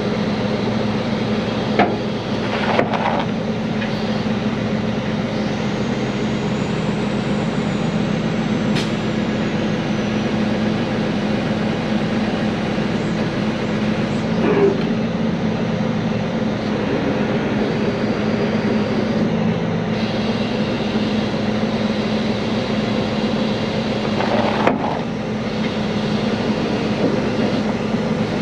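Heavy-duty wrecker's diesel engine running steadily during a trailer lift, with a few short knocks about 2, 3, 15 and 25 seconds in.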